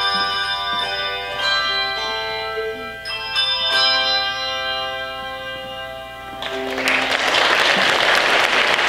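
Handbell choir ringing chords that sustain and slowly die away, with a last lower chord struck about six and a half seconds in. Right after it, audience applause breaks out and carries on.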